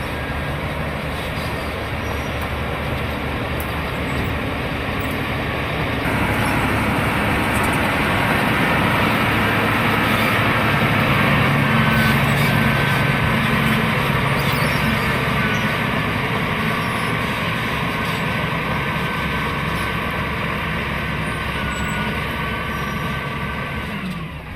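Bulldozer's diesel engine running steadily, growing a little louder about six seconds in and again around the middle, then cutting off abruptly at the end.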